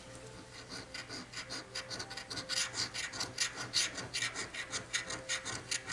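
Scratch-off lottery ticket's latex coating being scraped away in quick, repeated rasping strokes, several a second, growing louder about halfway through.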